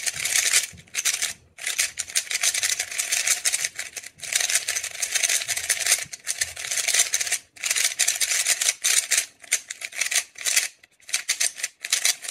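MoYu RS3M V5 Maglev ball-core 3x3 speed cube being turned fast by hand: rapid clacking of its plastic layers in runs of turns, with short pauses between runs. The new cube is still a little dry, not yet lubricated.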